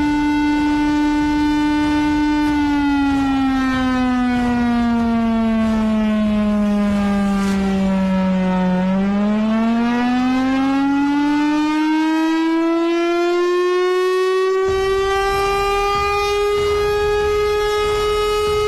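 Air-raid warning siren sounding one long wail. It holds a steady tone, then about two and a half seconds in slowly falls in pitch for several seconds, then rises to a higher pitch and holds there.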